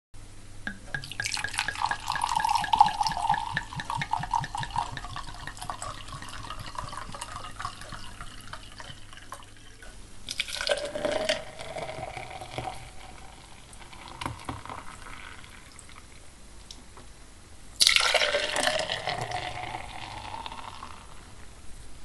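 Liquid poured from a wine bottle into a wine glass, three separate pours. The first is long, glugging from the bottle neck and rising in pitch. A shorter second pour follows, then a third that starts suddenly and is the loudest, again rising in pitch.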